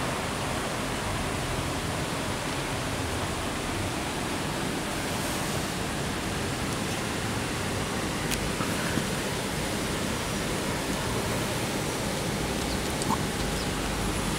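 Steady rush of running water in the otter pool, with one faint click about eight seconds in.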